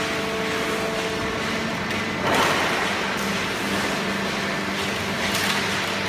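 Automatic horizontal waste-paper baling line running: a steady machine hum from the baler and its feed conveyor, with a short louder noise a little past two seconds in, as waste paper is handled.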